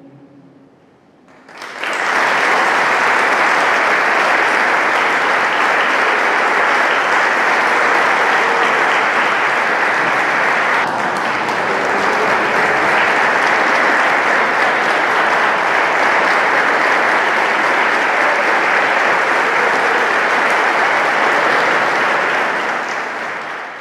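Applause from the audience and choir, breaking out suddenly about two seconds in and continuing steadily.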